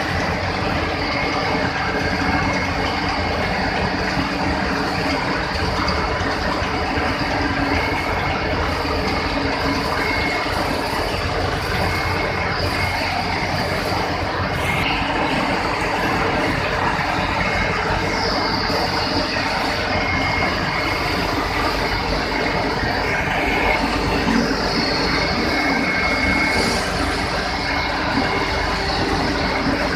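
Sugar-cane mill machinery running: a steady, dense clatter and hum from the cane carrier, crushing rollers and their gear drives, with a few steady whining tones through it. A higher hiss rises twice in the second half.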